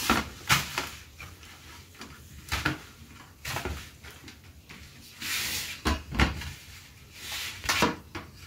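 Dough being kneaded by hand in a stainless steel plate: irregular thumps and knocks as the dough is pressed and pushed against the metal, with some scraping.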